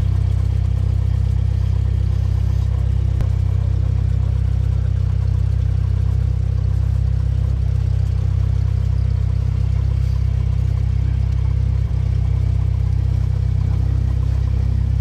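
Cessna's single piston engine and propeller turning at low taxi power, heard from inside the cabin as a steady low drone.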